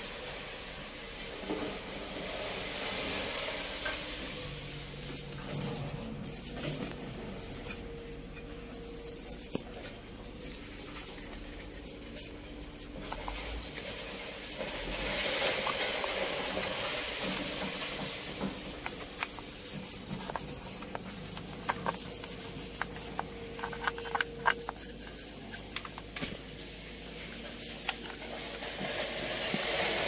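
Hand scraping and scratching at lead-acid battery posts and terminal clamps, irregular short strokes and clicks, to scrape off corrosion and grime. Swells of hissing come and go between the bouts of scraping.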